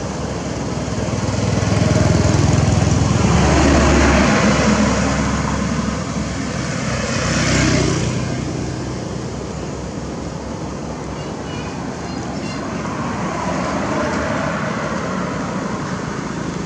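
Motor vehicle traffic on a road: a low engine hum swells and fades over the first five seconds, another vehicle passes at about eight seconds, then steady road noise.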